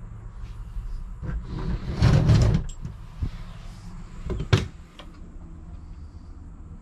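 Camper interior doors being handled: a scraping slide about two seconds in, then one sharp latch click about four and a half seconds in as a wardrobe door is opened, over a low steady hum.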